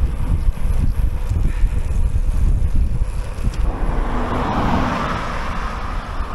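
Wind buffeting the microphone of a bike-mounted camera on a moving road bike. From about four seconds in, a car overtakes: its tyre and engine noise swells, then begins to fade as it pulls ahead.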